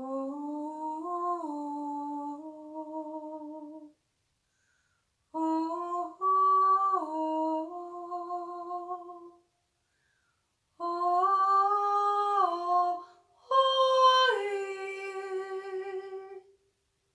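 A woman's voice humming a slow, wordless melody in four phrases of long held notes that step up and down in pitch, with short pauses between phrases.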